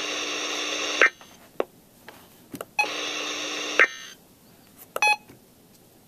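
Emergency Alert System end-of-message data bursts from a NOAA weather radio receiver's speaker: two buzzy bursts of digital SAME data tones, about a second each and a little under two seconds apart, signalling that the flood warning message is over. A faint brief crackle follows about five seconds in.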